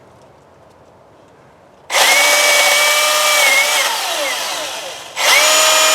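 Milwaukee M18 battery chainsaw triggered about two seconds in, its motor and chain running with a steady high whine. The pitch falls as it winds down, then it is triggered again and runs up loud near the end.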